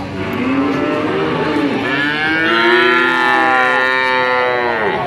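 Cattle mooing: a fainter low moo in the first couple of seconds, then a long, loud moo that starts about two seconds in and is held for about three seconds, bending in pitch at its start and end.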